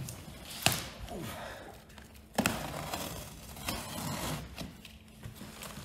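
Utility knife slicing through packing tape and cardboard on a large shipping box, a scratchy cutting sound with two sharp clicks, one under a second in and one about two and a half seconds in.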